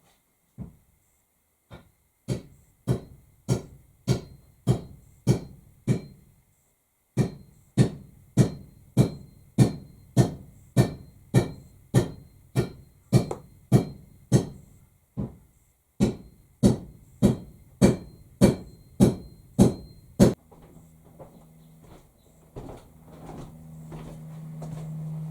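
Hammer driving a metal wedge into the top of an axe handle in the eye of the head: steady, ringing blows a little under two a second, in three runs with short pauses. After the hammering stops, a low steady hum rises near the end.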